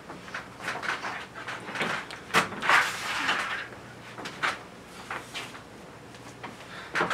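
Scattered sharp claps and knocks in a small hall, with a brief, denser burst of audience noise about two and a half seconds in.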